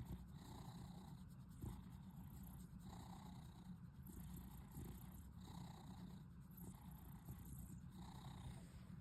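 Domestic cat purring steadily and softly while being stroked, a sign of contentment, with a slight swell in the sound about every two and a half seconds.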